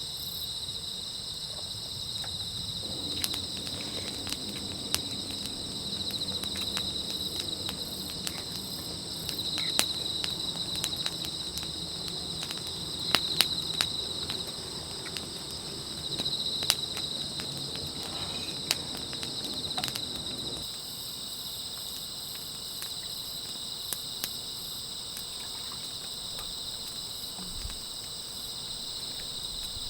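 Insects chirring steadily at night in a high, even drone. From about three seconds in until about two-thirds of the way through, a low rumble and scattered sharp clicks sound under it, then stop.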